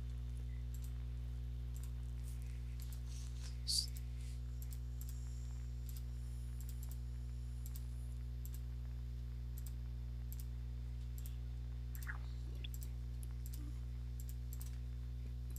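Computer mouse clicking now and then over a steady low electrical hum, with one sharper click about four seconds in.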